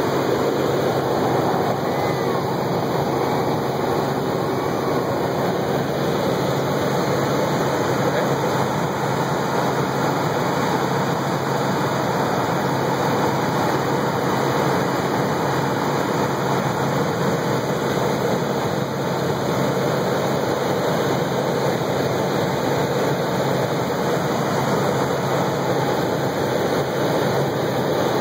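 Helicopter in flight: a loud, steady rush of engine and rotor noise with a low steady hum under it.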